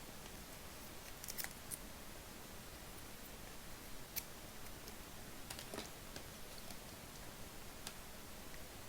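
Thick chrome trading cards being handled and flipped through by hand: a few faint, sharp clicks of card against card, spread irregularly over a quiet room hiss.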